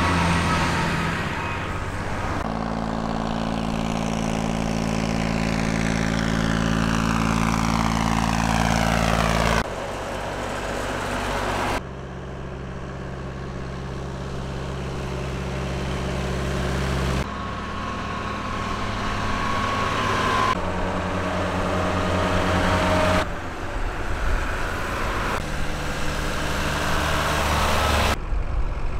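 Tractor engines running steadily as tractors drive by, in a string of short segments that change abruptly every few seconds. Several grow louder as a tractor approaches, and a longer one early on carries the sweeping hiss of a tractor passing close.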